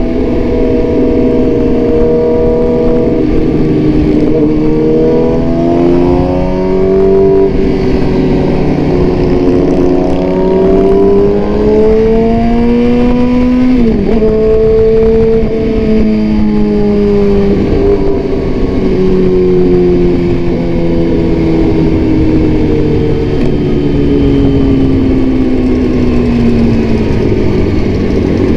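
Motorcycle engine through an Austin Racing aftermarket exhaust, heard from the rider's position at highway speed. The engine note climbs steadily for about ten seconds, drops sharply at a gear change around halfway, then slowly falls away as the bike eases off, all over steady wind noise.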